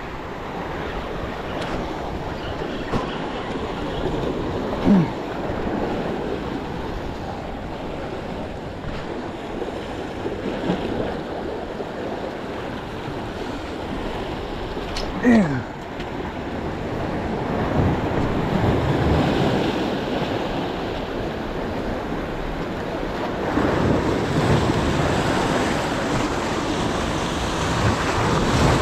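Waves surging and breaking over rocks, with wind on the microphone; the surf swells louder in the last third. Two brief falling-pitch cries stand out, about five seconds in and again near the middle.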